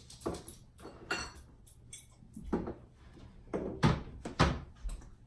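Kitchen cupboard being searched: a run of irregular knocks and clunks of cupboard doors and jars being moved, the loudest two in the second half.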